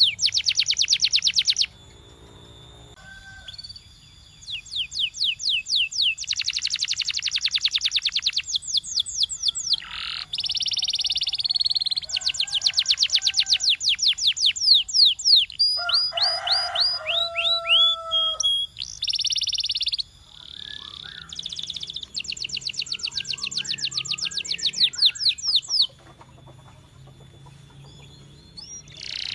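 Canary singing: fast trills of rapidly repeated notes broken by clear whistled notes, with a lower warbling phrase about halfway through. The song pauses briefly a couple of seconds in and again near the end.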